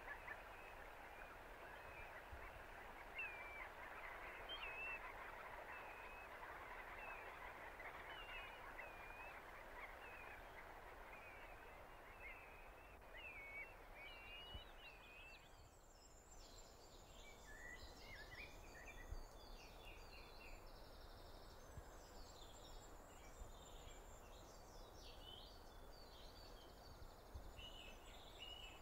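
Faint night-time ambience with scattered short, squiggly chirping calls. About halfway through it gives way to faint, varied birdsong of a dawn chorus.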